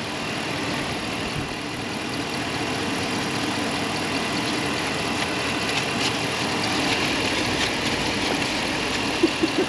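Dodge pickup's engine idling steadily under the open hood, with a few faint clicks from hands working in the engine bay.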